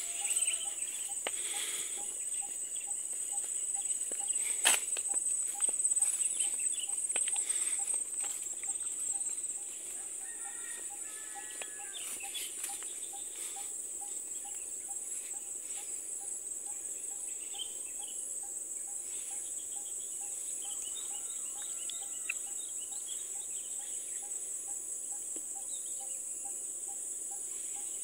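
Steady high-pitched insect drone with scattered bird calls, and footsteps swishing through grass during roughly the first ten seconds.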